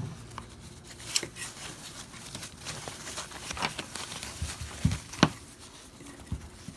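Product packaging being opened by hand: tearing and crinkling with scattered clicks and rustles, and two sharp knocks about five seconds in.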